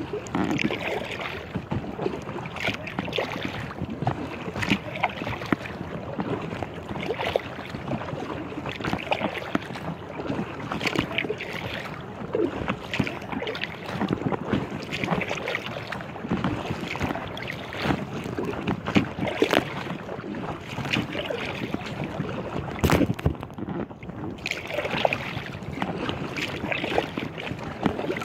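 Choppy lake water slapping and splashing against the hull of an inflatable kayak, in irregular surges every second or two.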